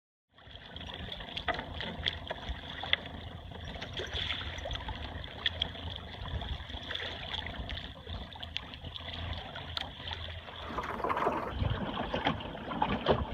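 Water trickling and lapping along the hull of a small sailboat under way in light air, with many small ticks and a low wind rumble on the microphone. It grows louder and more splashy about eleven seconds in.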